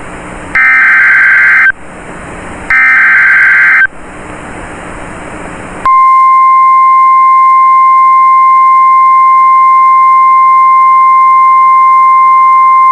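Two bursts of an Emergency Alert System SAME header, each a loud buzzing digital data burst about a second long with radio hiss between them. About six seconds in, the NOAA Weather Radio warning alarm tone starts: a steady, single-pitched tone of about 1050 Hz that holds unbroken, announcing a new warning.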